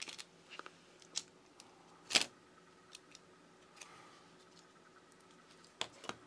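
Light clicks and crackles of an iPod touch battery being pried up with a plastic pick and pulled free of its adhesive, the loudest click about two seconds in and a couple more near the end.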